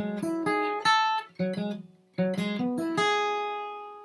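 Flatpicked steel-string acoustic guitar playing a quick bluegrass lick of picked notes, run through twice. The second time it ends on a note left ringing and fading.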